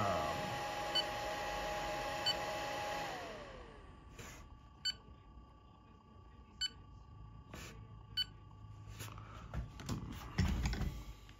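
AlgoLaser DIY Kit MK2 touchscreen control panel beeping as its menu is tapped: five short, sharp beeps a second or two apart. Early on, a steady machine whir drops in pitch and fades out about three seconds in, and a few low knocks come near the end.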